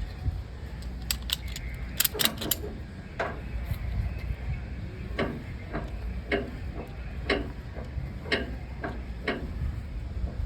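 Ratchet on a cargo tie-down strap being worked to tighten the strap over a load, sharp ratchet clicks repeating about twice a second, over a steady low rumble.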